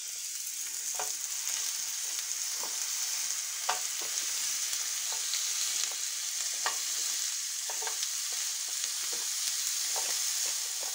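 Frozen beef köfte patties frying in a hot oiled grill pan: a steady sizzle with scattered small crackles and pops, building up over the first second as more patties go in.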